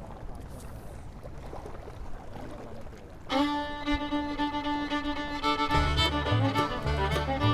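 Low, steady background noise, then instrumental music starts abruptly about three seconds in with long held notes; a heavy bass beat joins about two seconds later.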